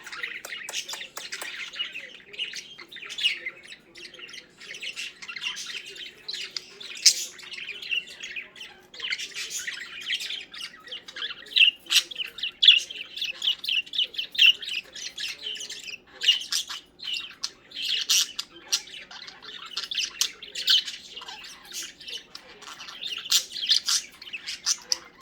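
Several budgerigars chattering without pause, a dense run of rapid chirps, warbles and squawks.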